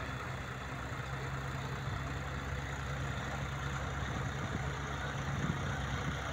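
John Deere 5045 D tractor's three-cylinder diesel engine running steadily under load as it pulls a laser land leveler through tilled soil.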